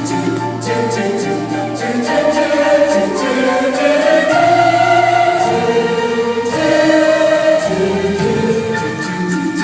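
Choral singing with instrumental backing: a Christmas-style melody with sustained voices over a steady bass line.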